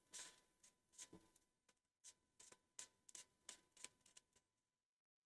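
Near silence with a dozen or so faint, light clicks and rustles scattered over the first four seconds: hands handling a lightweight model aircraft's fuselage and pressing its lower wing into place.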